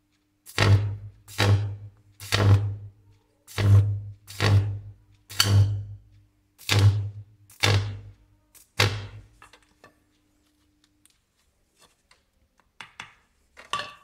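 High-voltage arc from a microwave oven transformer buzzing in nine short bursts about a second apart, each a loud low hum with crackle that dies away quickly. A few faint clicks near the end.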